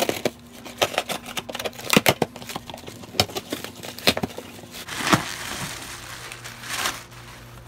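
Cardboard shipping box being torn open by hand: a run of sharp ripping and crackling as the tear strip is pulled and the flaps are pried apart, then the crinkle of a clear plastic bag as the wrapped item is lifted out near the end.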